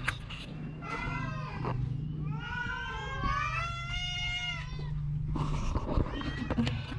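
Cat meowing: a short call about a second in, then a long drawn-out call from about two to five seconds, over a steady low hum.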